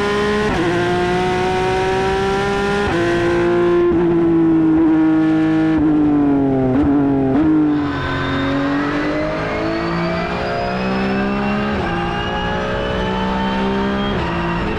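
Porsche 992 GT3 Cup race car's naturally aspirated 4.0-litre flat-six at full throttle, pitch climbing and dropping sharply at each quick upshift. In the middle the revs fall away with a couple of short blips as the car brakes and downshifts, then it pulls up through the gears again.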